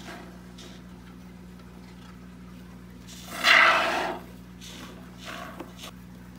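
Can of Great Stuff expanding polyurethane foam hissing briefly, for under a second, as foam is sprayed through its straw nozzle about three seconds in, with a few light rubs of the can and nozzle being handled.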